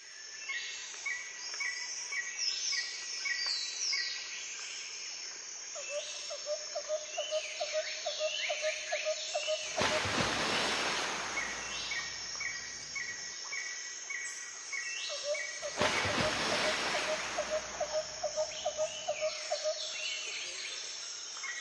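Small birds chirping in short repeated notes and quick rising and falling calls, with a run of lower pulsed notes at about four a second, heard twice. Two stretches of hiss come in, the first about ten seconds in and the second about sixteen seconds in.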